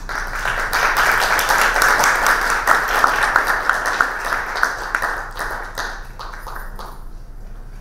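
Audience applauding, the clapping dense at first and thinning out, dying away over the last few seconds.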